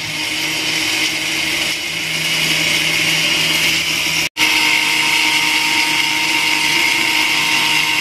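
Super Bomann countertop blender running steadily at one speed, blending liquid crepe batter. A little over four seconds in, the sound cuts out for an instant and then carries on at the same pitch.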